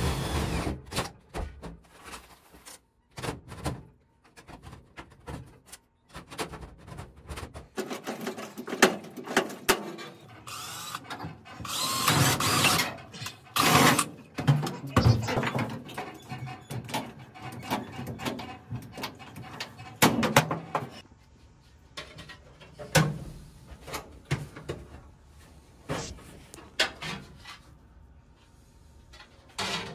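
Cordless drill drilling through a sheet-metal floor patch in a truck cab, for pop rivets, in several short bursts with clicks and knocks between.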